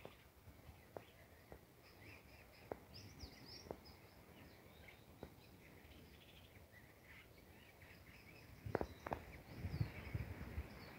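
Faint wild birdsong: scattered short chirps and calls from birds in the trees, with a few sharp clicks and some low bumps and rustling near the end.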